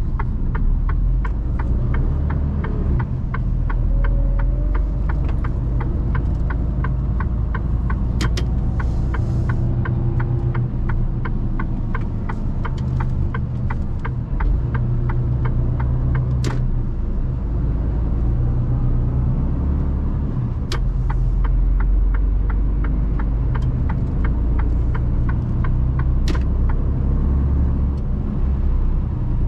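Mercedes Actros truck's diesel engine and road noise heard from inside the cab while driving, a steady low rumble. A rapid, regular ticking runs through the first half, and a few sharper clicks come later.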